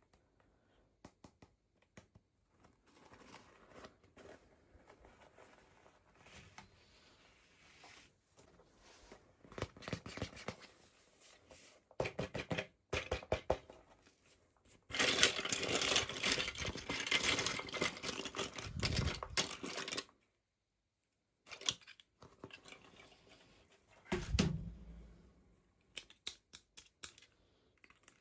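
Toy packaging being opened by hand: scattered clicks and crinkles, then about five seconds of loud tearing and rustling halfway through, and a dull thump a few seconds later.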